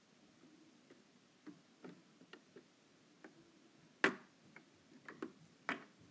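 Brick-built plastic chess pieces being picked up and set down on a plastic board: a scattered string of light clicks and taps, the sharpest about four seconds in.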